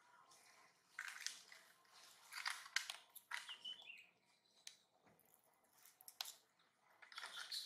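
A baby macaque picking at bits of food on wet concrete: faint scattered clicks and wet scuffs. A short high chirp comes about three and a half seconds in.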